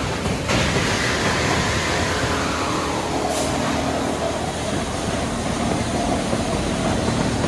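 Veneer mill machinery and conveyors running with a steady industrial drone. A whine falls in pitch over the first three seconds, and there is a brief hiss about three seconds in.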